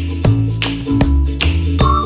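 Background music: an upbeat tune with a bass line and a steady beat.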